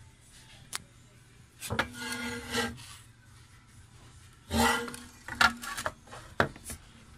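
Two scraping rubs, each with a low squeal in it, then a few quick knocks and clicks: the metal case of a Bosch EDC17C10 engine control unit being handled and shifted about on the desk.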